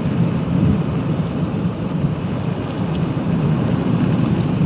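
Wind buffeting the microphone on a moving electric scooter: a steady, loud, low rumbling rush, with no clear motor sound above it.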